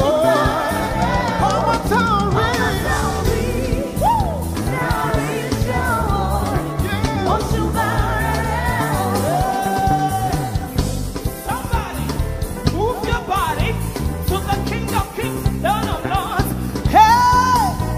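Gospel praise music: a lead singer's gliding melody over a band with a steady, pulsing bass beat, rising to a loud held high note near the end.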